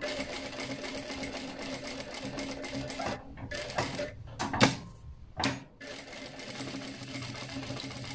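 Bruce R5 computerized sewing machine running and stitching with its upper thread cut. It runs steadily, with a few short pauses and sharp clicks in the middle.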